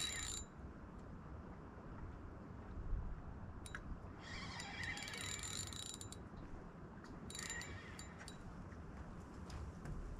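Spinning reel's drag buzzing in bursts as a hooked pike pulls line against light line: a short run at the start, a long run about four seconds in, and another shorter one near eight seconds.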